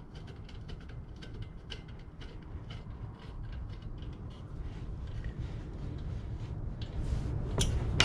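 Scattered light clicks and ticks of small metal parts and a screwdriver being handled while a 12 V diesel heater is reassembled, over a low rumble that grows a little louder toward the end.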